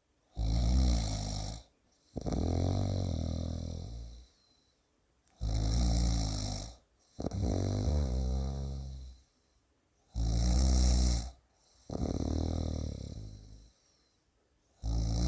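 A person snoring in a slow, regular rhythm: each breath cycle is a short loud snore followed by a longer one that fades away, then a pause, repeating about every five seconds, three full cycles with a fourth starting near the end.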